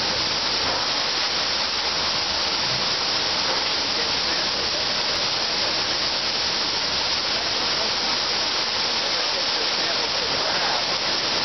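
Steady, rain-like rushing of a truckload of cranberries pouring off the back of a trailer into a receiving pit.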